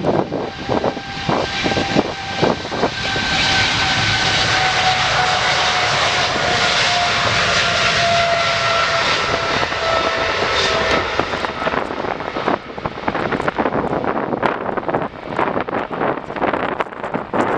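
An airliner passes close by. Its engines make a loud rushing noise, and a whine sinks slowly in pitch as it goes past, then fades. Gusts of wind buffet the microphone near the start and again toward the end.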